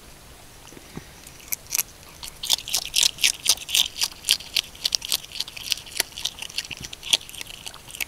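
Asian small-clawed otter chewing a crab shell with its mouth open: sharp crunching clicks, a few at first, then coming several times a second from about two and a half seconds in.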